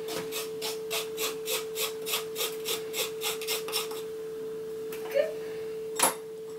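Wooden spoon rubbing flour through a wire mesh sieve, about three and a half scrapes a second, stopping about four seconds in. A single sharp knock about six seconds in, with a steady high hum underneath throughout.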